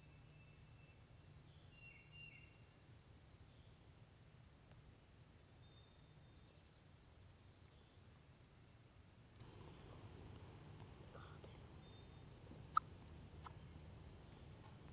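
Quiet woodland ambience with small birds chirping and singing faintly throughout, and one short sharp sound about thirteen seconds in.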